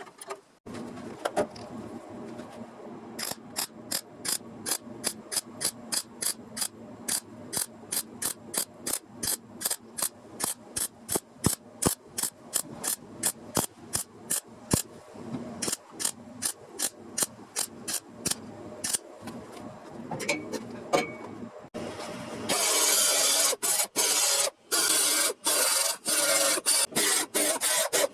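Metalworking on car body sheet metal: sharp, rhythmic tool strokes, about two or three a second, then near the end a loud, steady rasping noise broken by short pauses.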